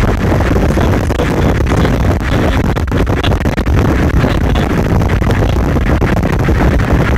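Wind rushing and buffeting on the microphone through an open car window, over steady tyre and road noise from the car driving along a highway.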